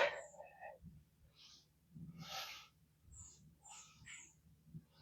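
Faint breathing and small mouth sounds from a man pausing between sentences, with a brief sound right at the start and a soft breath about two seconds in.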